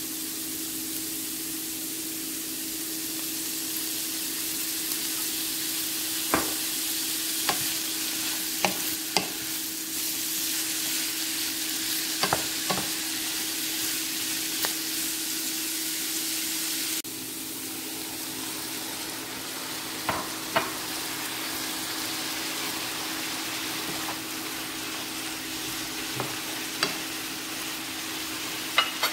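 Shredded cabbage, carrots and broccoli sizzling in a frying pan with a steady hiss while being stirred with a wooden spoon. Scattered sharp clicks and knocks of the spoon against the pan sound through it, over a steady low hum.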